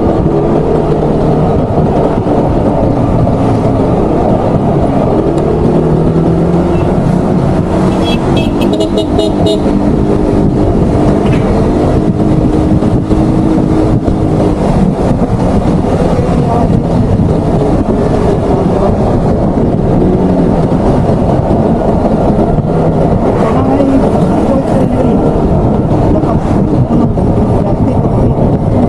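Motor scooter riding along a road: heavy wind rush on the microphone over the steady running of the engine and tyres. About eight seconds in comes a short run of quick high beeps, like toots.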